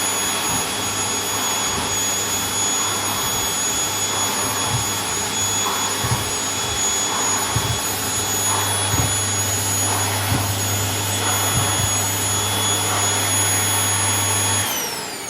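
Vacuum cleaner running with a steady motor whine and hum, with a few light knocks scattered through. Near the end it is switched off and the motor whine falls away as it spins down.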